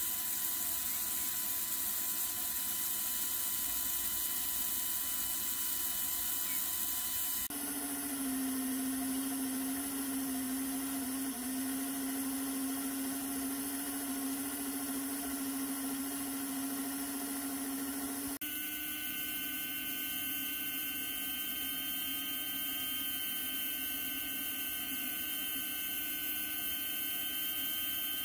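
Electric motors and gearing of model locomotives running on the rollers of a test track, a steady whir of fixed pitch. The pitch changes abruptly twice, about a quarter and about two thirds of the way in, as one locomotive gives way to another.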